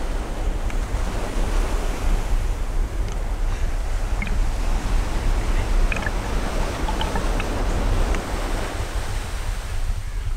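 Sea water washing and lapping around a camera held at the water surface: a steady rush of surf with wind rumbling on the microphone and a few small splashes.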